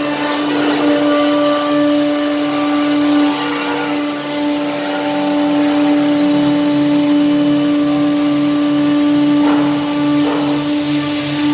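Woodworking sawing machine running with a steady electric hum and a regular low pulse, with brief rasping flurries about a second in and again near the end.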